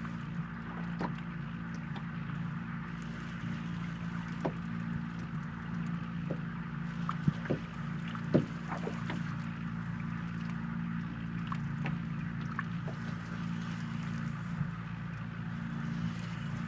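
A boat on a windy lake: a steady low hum with scattered light knocks and taps, the wind heavily filtered out by noise reduction.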